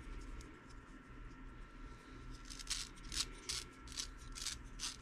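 Hands handling and fitting small parts on a metal RC truck axle: about seven short, sharp clicks and scrapes in the second half, over a faint steady background.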